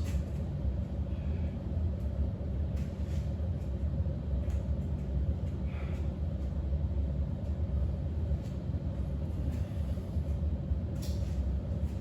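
Steady low rumble with a constant hum, and a few faint clicks scattered through it.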